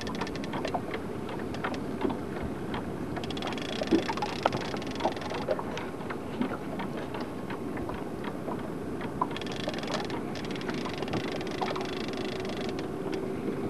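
Steady low running of a small fishing boat's motor, with scattered light clicks and ticks.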